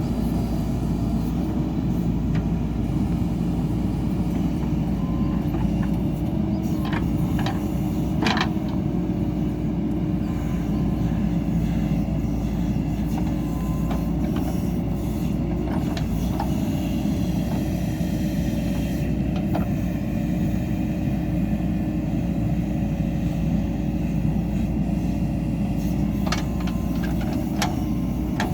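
JCB 3DX Super backhoe loader's diesel engine running steadily under working load, with a few short knocks and clanks over it, the loudest about eight seconds in.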